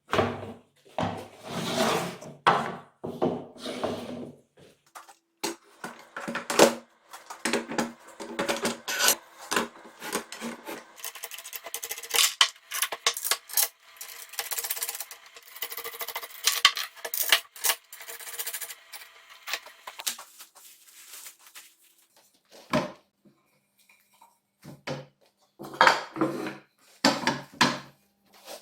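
Hand work on wooden boards: irregular knocks and clatters with stretches of scraping, busiest through the middle and down to a few separate knocks near the end.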